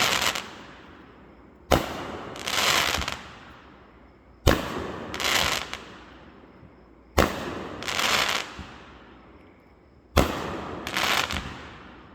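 Aerial fireworks going off at a steady rhythm, four times, about one every two and a half to three seconds. Each is a sharp bang followed within a second by a longer crackling burst.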